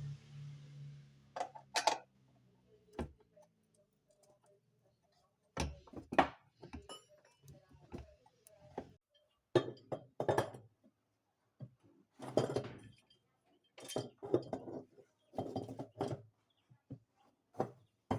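A low hum that cuts off about a second in, followed by irregular clinks and knocks of hard objects.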